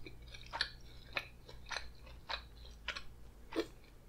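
A person chewing a mouthful of seasoned french fries with mouth closed, close to the microphone: about six soft, regular chews, roughly two a second.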